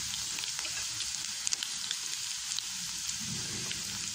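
Chicken pieces, onion and capsicum sizzling in a hot non-stick kadai: a steady frying hiss with scattered small crackles.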